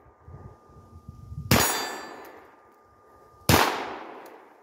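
Two shots from a .22 pistol, about two seconds apart, each a sharp crack that fades off. The first is followed by the ring of the bullet striking a steel target, and a steel plate keeps ringing on one faint note between the shots.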